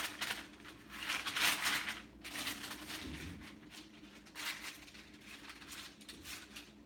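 Hands rubbing and smoothing buttered parchment paper on a sheet pan, giving soft rustling and crinkling in short irregular bursts.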